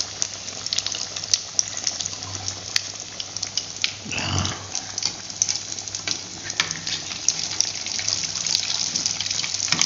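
Egg-coated potato fritters deep-frying in hot oil in an aluminium wok: a steady sizzle with dense crackling and popping, over a low hum. A brief low sound stands out about four seconds in.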